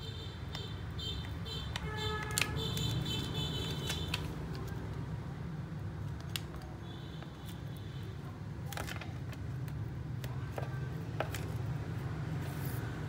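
A thin plastic card being worked back and forth through the adhesive between a tablet's LCD and touch glass, giving light scrapes and clicks over a steady low hum. Brief high thin tones come and go.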